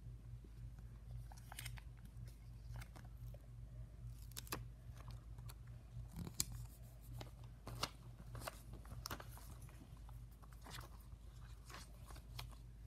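Crinkling and ticking of a clear plastic sticker sheet being handled, with a sticker peeled off and pressed onto a paper sticky note, in short scattered rustles and clicks over a steady low hum.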